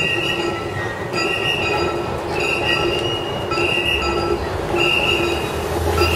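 A mikoshi procession passing: a shrill, high ringing comes about every second, five times, in rhythm with the bearers, over a dense background of crowd noise.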